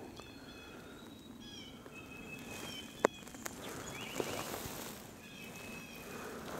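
Faint songbirds calling in the woods: scattered short high chirps and whistles with a quick trill about four seconds in, over a low outdoor hiss. A single sharp click sounds about three seconds in.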